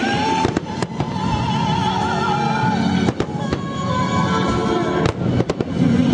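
Fireworks going off: sharp bangs in small clusters, about half a second in, around the middle and again near the end, over music that plays throughout.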